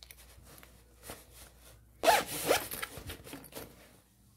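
A zipper on a sewn bag being pulled, with a loud, quick run about two seconds in and fainter handling sounds before and after.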